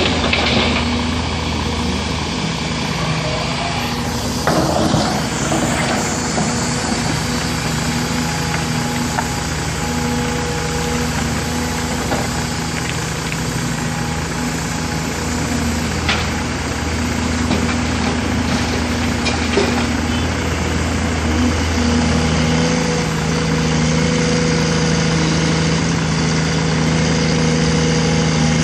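Caterpillar 336 excavator's diesel engine running steadily, its tone shifting about two-thirds of the way through. A few short knocks and clatters stand out over it, several seconds apart.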